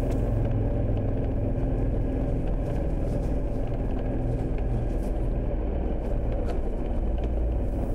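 KTM 1290 Super Adventure's V-twin engine running steadily as the motorcycle rides along a narrow road.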